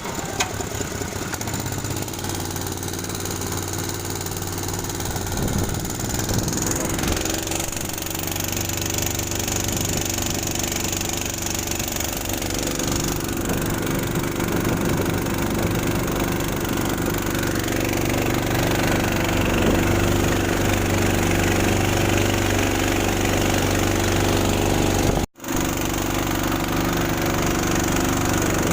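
A boat's engine running steadily at low, even speed, with a constant hum and no change in pitch. The sound drops out for an instant about 25 seconds in.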